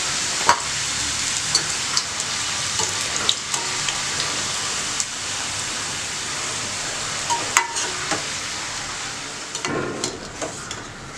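Strips of samosa-sheet dough deep-frying in hot oil in a steel kadai: a steady sizzle with a few sharp clicks. Near the end the sizzle drops and a slotted steel spoon clinks in the pan as it lifts the golden pieces out.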